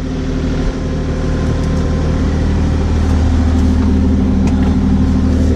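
Kubota 040 compact excavator's diesel engine running steadily, growing a little louder about a second in.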